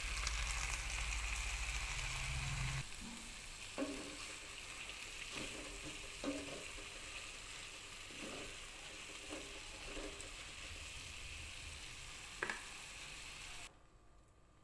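Vegetables sizzling in a non-stick frying pan with a little added water, a wooden spatula scraping and knocking against the pan every second or two as they are stirred. A low hum runs under the sizzle for the first three seconds, and the sound cuts off suddenly about a second before the end.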